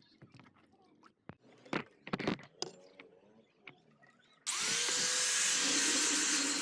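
A few light clicks and knocks of handling, then about four and a half seconds in an electric power tool switches on, its motor spinning up quickly and then running steadily and loudly.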